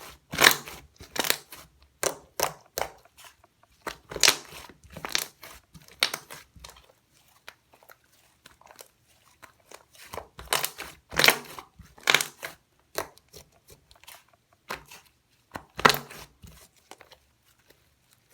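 Chocolate cream slime being squeezed and stretched by hand, giving irregular crackles and pops, roughly one every half second to second, with a quieter stretch about halfway through.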